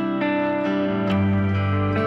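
Background music with plucked guitar.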